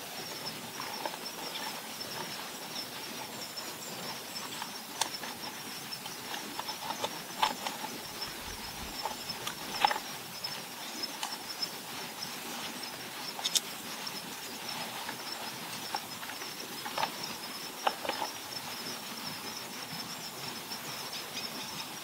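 Outdoor ambience: a steady, high-pitched chirring of insects, with short bird calls several times over it.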